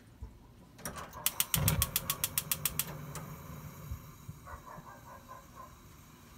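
Gas stove igniter clicking rapidly, about seven ticks a second for a second and a half, with a low rumble from the burner lighting under the pan.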